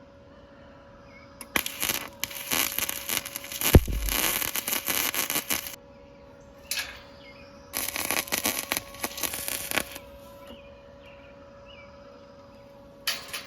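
A steel farm gate being worked onto its hinges: bursts of scraping and rattling, with one heavy knock about four seconds in.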